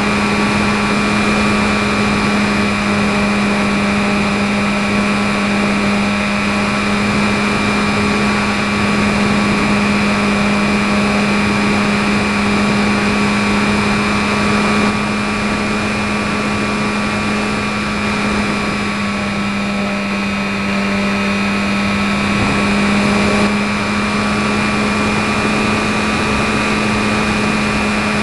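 E-flite 450 860kv brushless electric motor turning a 10x5 propeller, heard from a camera on board the RC trainer plane in flight: a loud, steady hum at constant pitch, the throttle held level, over a steady hiss of air rushing past.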